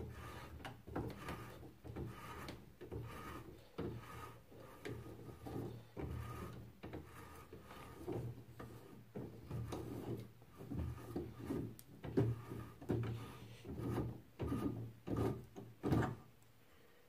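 A hand threading die with a 1.75 mm pitch, in a die stock, cutting a thread on a metal rod held in a vise, run dry without lubrication. It gives repeated rasping, scraping strokes, about one or two a second, as the die is turned; they stop about a second before the end.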